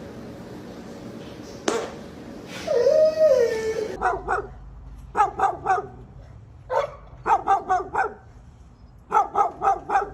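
A dog barking in quick runs of two to four sharp barks, starting about four seconds in. Before that comes a drawn-out wavering cry.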